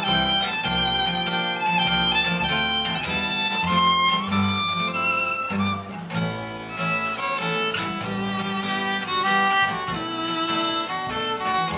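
Street band playing an instrumental tune: a quick-moving melody over a steady low accompaniment, with a regular beat that runs throughout.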